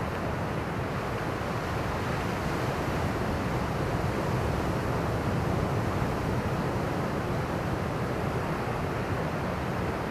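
Ocean surf washing in steadily, swell stirred up by Typhoon Doksuri, growing slightly louder around the middle.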